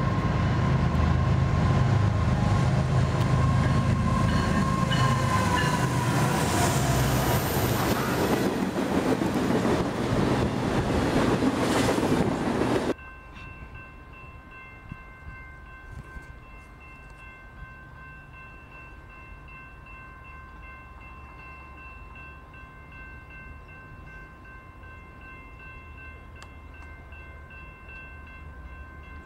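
BNSF diesel locomotives on a coal train, loud engine rumble with the horn sounding, its pitch dropping slightly. About 13 seconds in this cuts off abruptly to a quieter grade-crossing warning bell ringing steadily as a train approaches in the distance.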